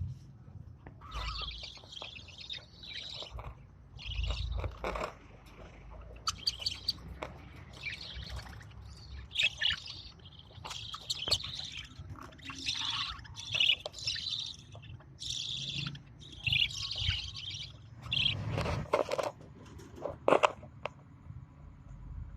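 Lovebirds chirping and chattering in repeated short bursts of high calls, with a couple of louder sharp sounds near the end.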